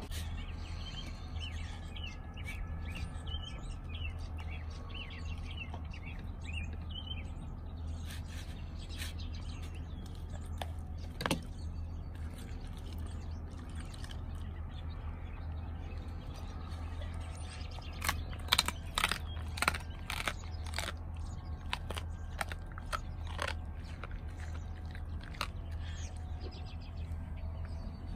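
German Shepherd chewing raw chicken off a paper plate, with scattered sharp crunching bites and a run of the loudest bites about two-thirds of the way through. Birds chirp in the first few seconds, over a steady low rumble.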